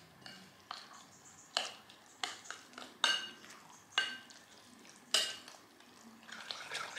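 A spoon stirring oats and yogurt in a glass bowl, clinking against the glass about once a second, with a short ring after each clink.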